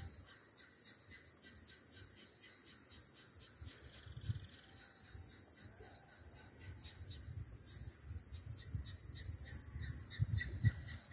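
Faint, steady chorus of crickets chirring in one continuous high band, with an uneven low rumble on the microphone underneath.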